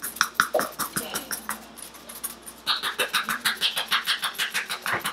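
Spice shaker being shaken quickly over raw meat: a fast, even rattle of about six or seven shakes a second. It is softer for a moment about two seconds in, then louder again.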